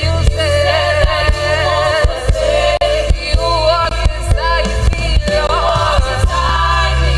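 Live gospel praise band playing, with heavy bass, regular drum hits and a wavering melody line over it.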